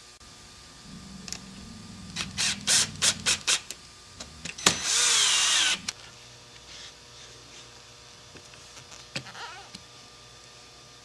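Hands handling a telemark binding and ski on a workbench. First comes a quick run of sharp knocks and clicks, then just under five seconds in a loud, hissy whir lasting about a second with a falling tone in it, then a few scattered clicks.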